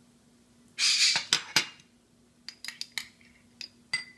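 A metal spoon knocking and clinking against small ceramic ramekins as sauce ingredients are spooned together. There is a short scraping rush with a few sharp knocks about a second in, then a run of light, ringing clinks through the second half.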